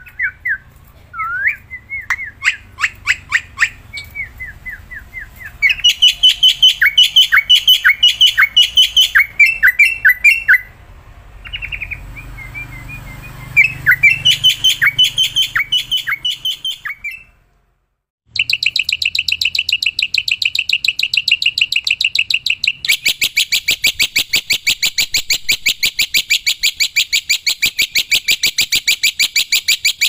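Black-winged myna (jalak putih) singing loudly: first a string of falling whistled notes, then runs of sharp repeated notes. After a short break past the middle comes a fast, very even chatter of repeated notes.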